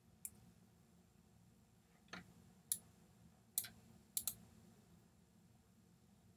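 Computer mouse button clicked about six times, faint and sharp, the last two in quick succession like a double-click.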